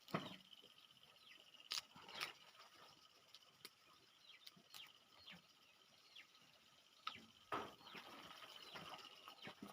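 Quiet eating sounds from peanuts: scattered sharp cracks and crunches. They are loudest just at the start, twice near two seconds in, and again around seven seconds in. A faint steady high-pitched hum runs behind them.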